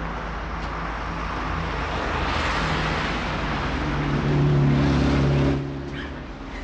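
Street traffic: a motor vehicle's engine hum and road noise swelling to its loudest about four to five seconds in, then stopping suddenly about five and a half seconds in.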